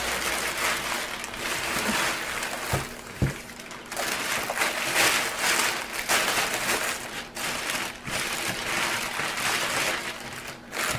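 Packaging bags rustling and crinkling as items are pulled out of a shipping package and it is emptied, with a couple of soft knocks about three seconds in.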